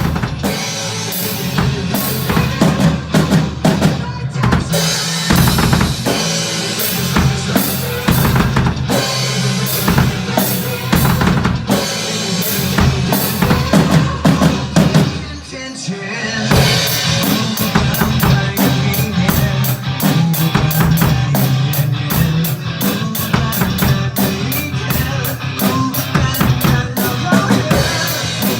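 Drum kit played along with the song's backing track: bass drum and snare keep a steady beat. There is a brief drop about halfway through, then the beat comes back with quicker, busier hits.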